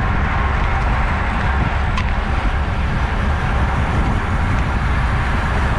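Steady rush of wind over the camera's microphone, mixed with tyre noise from road bikes riding in a bunch at about 25 mph. There is one brief click about two seconds in.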